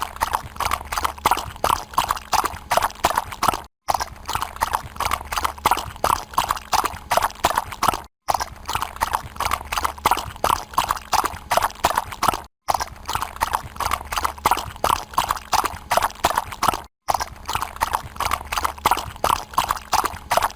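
Horse hoofbeats at a run: a quick, rhythmic clip-clop. It plays as a loop that repeats about every four and a half seconds, with a brief silent break between repeats.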